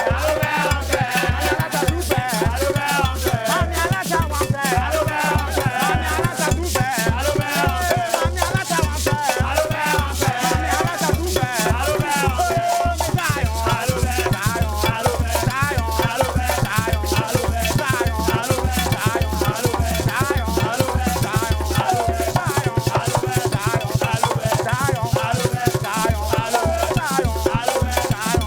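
Upbeat dance music with a steady driving bass-drum beat, shakers and wavering melodic lines over it. Near the end the beat breaks into a fast drum roll for a few seconds, then resumes.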